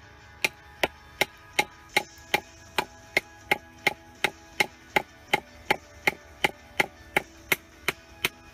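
A wooden baton striking the spine of a Nieto Chamán bushcraft knife, driving its Sandvik 14C28N steel blade through a stick. The blows are sharp, even and regular, nearly three a second.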